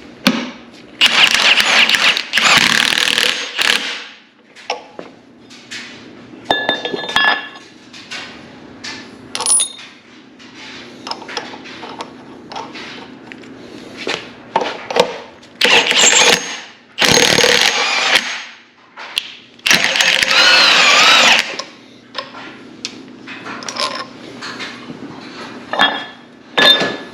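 Power wrench running in repeated bursts of a second or two, tightening the nut on a cylinder liner puller to draw a wet liner up out of a CAT diesel engine block.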